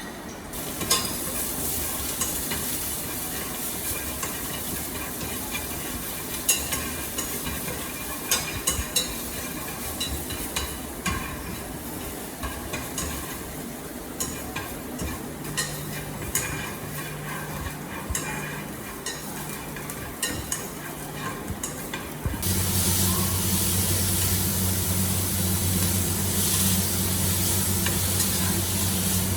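Food sizzling in hot oil in a frying pan while a utensil stirs it, with frequent clicks and scrapes against the pan. About three quarters of the way through the sizzle gets louder and a steady low hum joins it.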